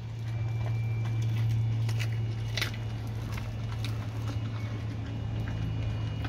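A dog chewing a raw mackerel head: scattered wet crunches and clicks of bone, the sharpest about two and a half seconds in, over a steady low hum.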